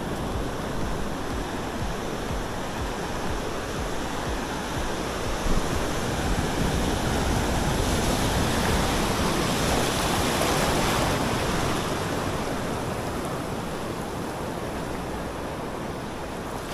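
Ocean surf washing on the beach: a steady roar of breaking waves that swells up between about eight and eleven seconds in.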